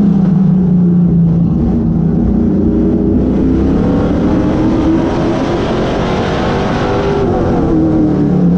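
Vintage modified race car's engine heard from inside the cockpit at racing speed. The revs hold, then climb steadily for several seconds, then fall off about seven seconds in and begin to build again.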